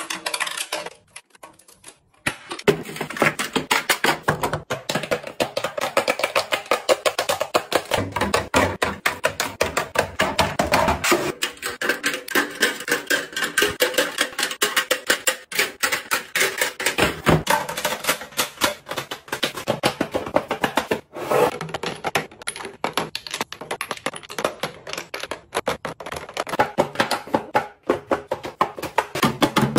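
Rapid, dense clicking and clacking of plastic makeup cases and lipstick tubes being set into clear acrylic organizer trays and shelves, after a brief near-silent gap about a second in.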